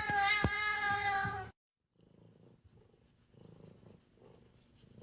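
A cat's long, drawn-out meow, dropping slightly in pitch, with a couple of sharp clicks through it; it cuts off abruptly about a second and a half in. After a brief gap, a cat purring softly in slow, regular swells.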